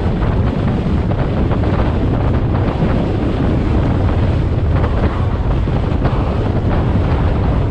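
Steady, loud wind buffeting the microphone of a rider on a moving motorcycle.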